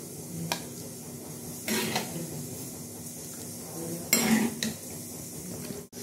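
Metal spoon scraping and knocking against a kadhai as cooked cauliflower curry is spooned out into a bowl. There are three strokes, the loudest about four seconds in.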